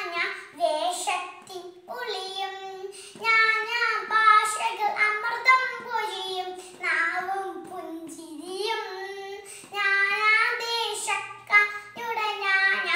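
A young girl singing solo, unaccompanied, in a high child's voice, with held notes and short breaks between phrases.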